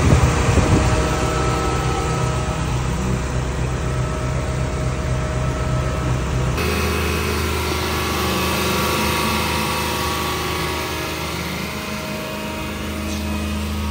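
Car engine idling steadily, its repaired alternator charging normally. The sound changes abruptly about halfway through, from a pulsing low rumble to a smoother hum.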